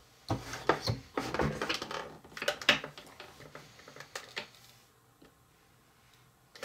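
Hard plastic clicks and clatter of a Play-Doh Burger Builder extruder worked by hand: the press lever and sliding shape plate knock and click, with a plastic cutter tapping as the dough is trimmed. The sharp clicks come in a quick irregular run over the first four seconds or so.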